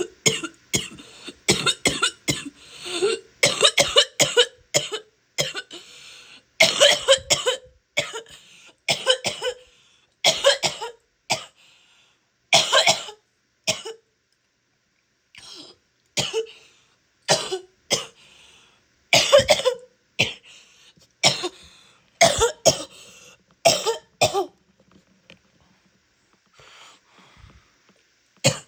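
A woman's wet, phlegmy coughing, in repeated fits of several coughs with short pauses between them.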